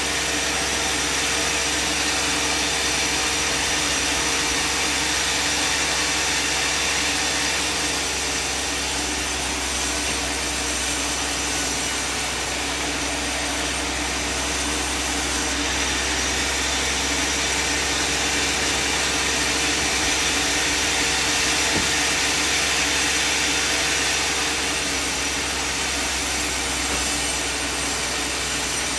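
Band sawmill running steadily, its engine and blade sawing through timber without a break.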